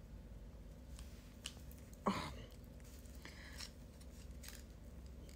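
Galah (rose-breasted cockatoo) nibbling and tugging at hair with its beak: a few soft, scattered clicks and snips, with one louder snap about two seconds in.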